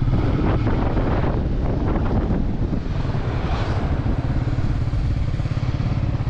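Motorcycle engine running steadily while the bike rides along a dirt track, with some rumble from the tyres and wind.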